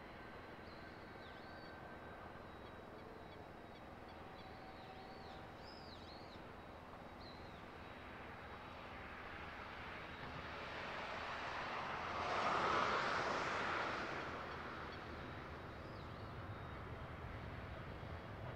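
Cessna Citation V business jet's twin turbofans idling with a steady, distant hiss while small birds chirp over it in the first several seconds. A rushing noise swells from about eight seconds in, is loudest around twelve to thirteen seconds, then dies back down.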